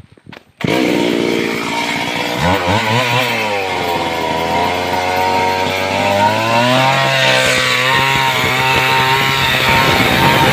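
Stihl two-stroke chainsaw engine running, cutting in suddenly about half a second in and then revving up and down a couple of times.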